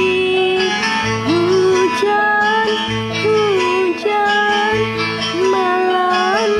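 A woman singing a song over a karaoke backing track of plucked guitar and bass, in held, gliding phrases.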